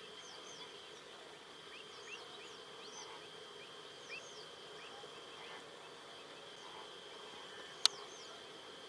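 Marsh ambience: a steady high-pitched insect drone with many short bird chirps and calls scattered over it. A single sharp click near the end.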